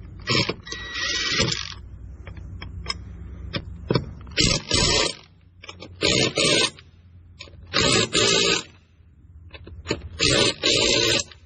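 An impact wrench running the four lug nuts down onto a tractor's front wheel hub: four pairs of short bursts of rattling about two seconds apart, one pair for each nut.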